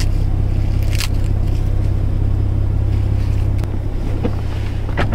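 A steady low hum fills the car's cabin, with a few faint rustles and clicks over it.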